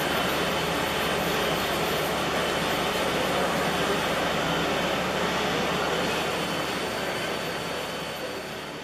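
Hartford HB 3150 CNC milling machine running as its spindle head traverses, a steady mechanical whir with a faint high whine, fading out near the end.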